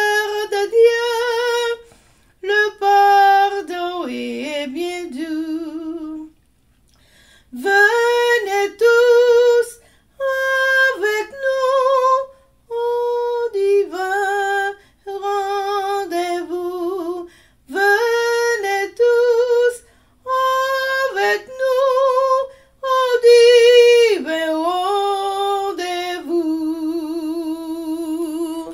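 A woman singing a French hymn solo and unaccompanied, in short phrases with brief pauses between them, closing on a long held note with vibrato near the end.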